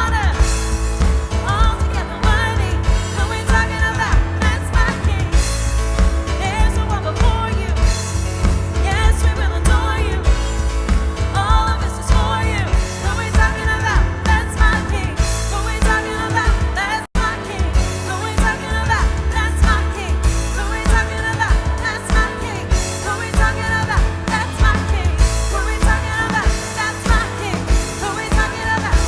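Live worship band playing a contemporary praise song, with lead and backing vocals over synth, piano, bass guitar and drum kit. The sound cuts out for a split second about halfway through.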